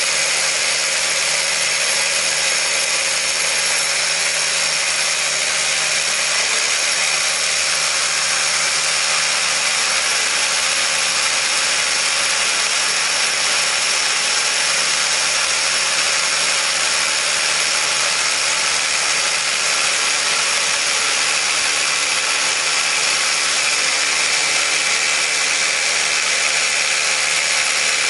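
SDS rotary hammer drilling into a concrete block, running steadily under load with no pause.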